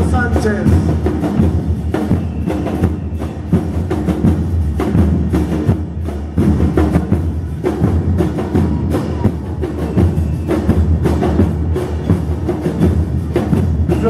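Murga porteña percussion playing live: bass drums with cymbals and snare drums keeping up a dense, steady beat of hits.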